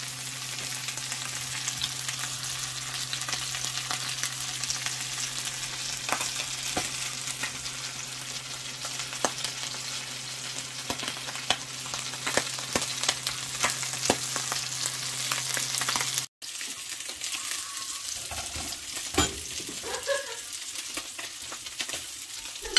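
Mackerel frying in hot oil in a pan: a steady sizzle full of quick crackles and pops, over a low steady hum. About sixteen seconds in it cuts abruptly to a quieter, thinner sizzle with a few clicks.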